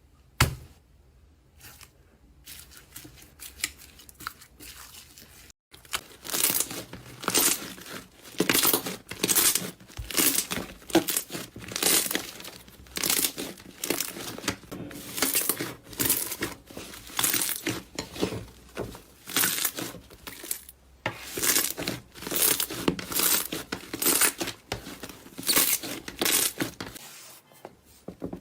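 Slime being squeezed and stretched by hand, making repeated crackling sounds about once or twice a second, starting after a few quiet seconds.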